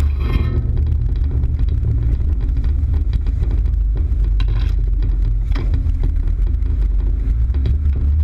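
Off-road vehicle engine running with a steady low rumble, over scattered knocks and rattles.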